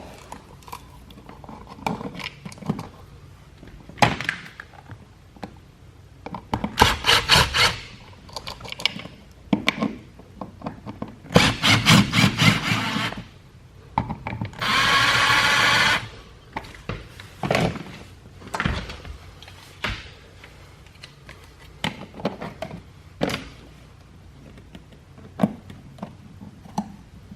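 Short runs of a small cordless drill/driver fastening screws, with one steady run of the motor lasting about a second and a half. Clicks, knocks and handling noises of mounting a wall outlet come in between.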